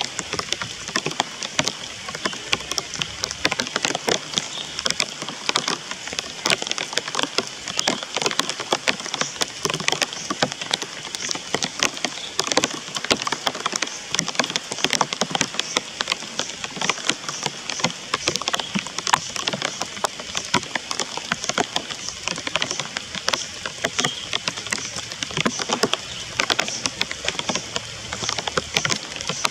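Steady rain falling, a dense, even run of drop hits with no let-up.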